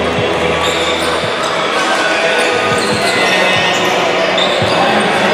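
Basketball bouncing on a wooden sports-hall floor as a player dribbles, a few separate thuds, with short high squeaks and voices in the hall behind.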